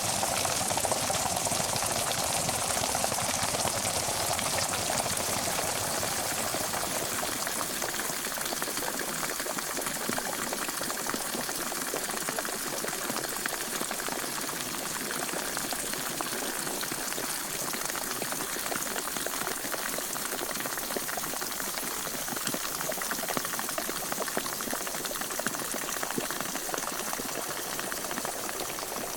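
Pot of water at the boil, a dense, steady bubbling and popping; a low rumble underneath fades out about seven seconds in.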